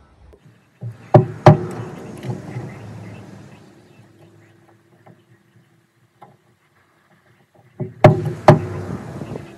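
Sharp metallic knocks and clatter as small steel parts are handled at a truck air brake chamber's pushrod and slack adjuster. Two quick knocks come about a second in, then softer rattling, and two more sharp knocks near the end.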